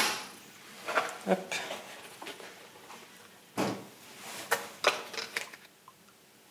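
Short knocks and clatter of hard plastic as a pet carrier and a plastic bowl are handled, with the loudest knock about three and a half seconds in and a few lighter ones after it.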